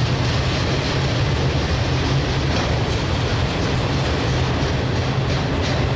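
Autorack freight train rolling past close by: steady noise of steel wheels on rail with a low hum underneath.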